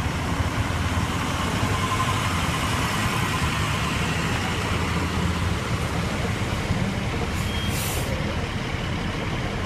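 Fire engine and ambulance engines running close by with a steady low rumble, and a short air-brake hiss about eight seconds in.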